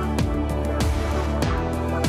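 Background music with a regular beat over sustained notes.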